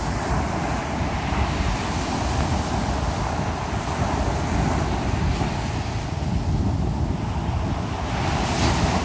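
Surf breaking and washing up a sandy beach, a steady rushing hiss that swells near the end as a wave runs in, with wind buffeting the microphone underneath.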